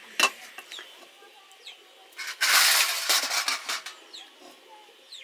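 Cooking clatter: a sharp knock of a utensil near the start, then a loud hissing burst about two seconds in that lasts about a second. Birds chirp faintly in the background.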